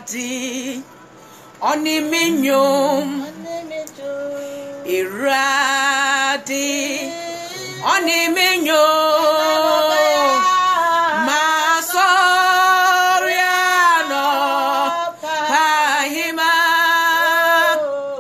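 A woman singing in long phrases, holding notes with vibrato and pausing briefly between lines.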